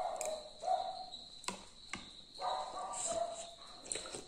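A dog barking a few times, with a longer run of barks a little past halfway through.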